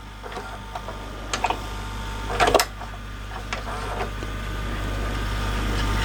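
VCR tape transport in an LG VCR/DVD combo: a few mechanical clicks as the mechanism shifts, then the tape winding at high speed, growing steadily louder.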